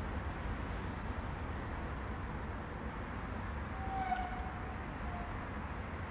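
Steady background noise: a low rumble with a hiss over it, and a faint short tone about four seconds in.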